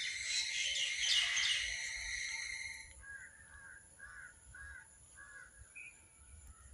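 Outdoor bird calls: about three seconds in, a steady high hum with busy chirping cuts off, and a bird gives a run of about five short, evenly spaced calls.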